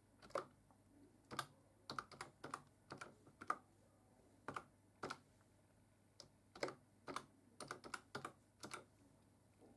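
Faint computer-keyboard typing as a password is entered and then entered again to confirm it: irregular single key clicks with a couple of short pauses.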